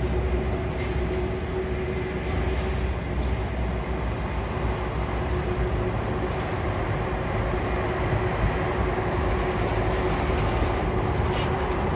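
Jet engines of a Boeing 747-400 running: a steady low rumble and rush with a constant hum through it.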